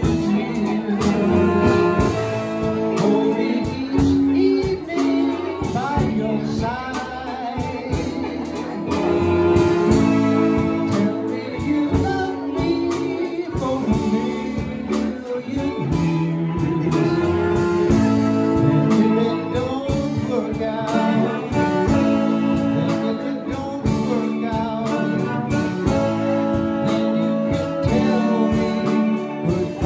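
A big band playing with a man singing the lead vocal, backed by saxophones, brass, electric guitar and drums.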